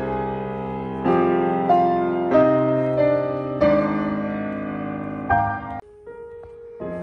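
Piano playing a slow passage of struck chords about a second apart, each left to ring and fade. Near the end it drops to one soft held note before a new chord is struck.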